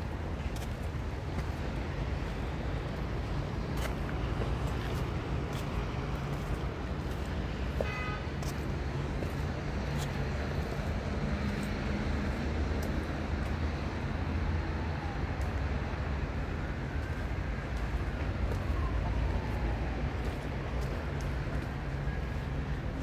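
Steady road traffic, a low rumble of passing cars, with a short high beep about eight seconds in.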